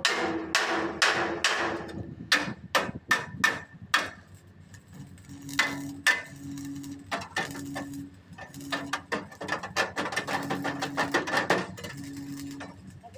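Hand hammer striking the sheet-metal front panel of a truck cab as it is beaten out. Quick runs of blows come in the first few seconds, then scattered hits, then a fast burst of rapid strikes near the end. A low hum comes and goes in the second half.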